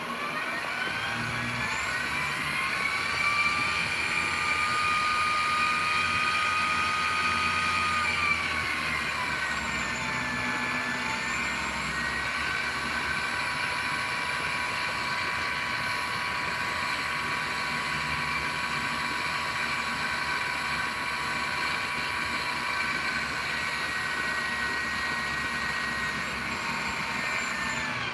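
RC-airplane brushless outrunner motor whining as it spins. The pitch climbs as it spins up, sags briefly about ten seconds in, then holds steady, and drops as it spins down at the very end, with a thin high-pitched steady whine over it.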